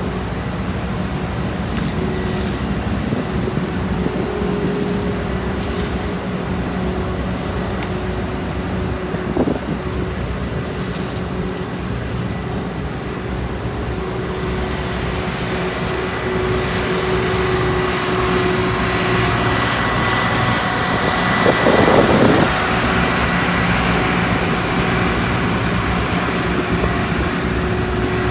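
Heavy diesel road-paving machinery running steadily with a constant engine hum and whine, growing louder about halfway through, with a brief rough swell near the end.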